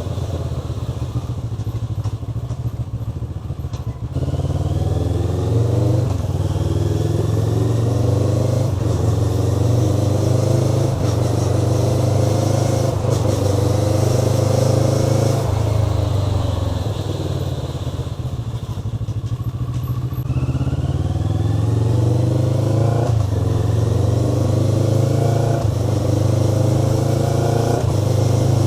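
Motorcycle engine pulling through the gears, its pitch rising and dropping back at each shift. It eases off about halfway through, then accelerates through the gears again.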